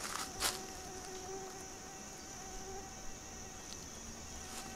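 Insects buzzing steadily: a constant high-pitched drone from the woods, with a lower fly-like buzz hovering near the microphone. One footstep crunches on dry ground about half a second in.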